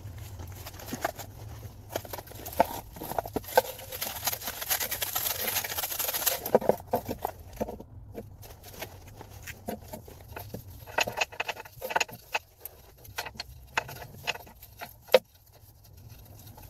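Sandpaper scrubbing by hand inside the bore of a car's rear wheel carrier, cleaning it out for a new ball joint: a rasping scratch for a few seconds, then scattered light clicks and taps.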